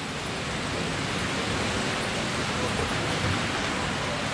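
HO-scale model trains rolling over the track: a steady rushing noise of wheels and motors with a low rumble, growing a little louder as an electric locomotive and its passenger coaches pass close by.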